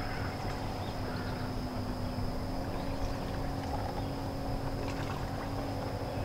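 A boat engine running steadily: a low rumble with an even hum over it and a few faint light ticks.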